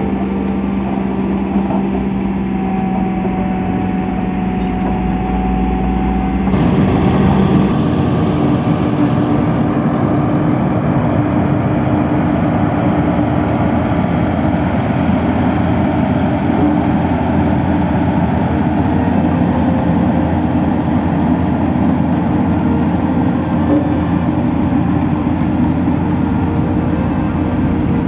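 SANY SAG200-5 motor grader's diesel engine running steadily with a low hum as its blade cuts earth. About six seconds in it gives way to a single-drum road roller's diesel engine, louder and rougher, with a dense mechanical noise over a steady drone.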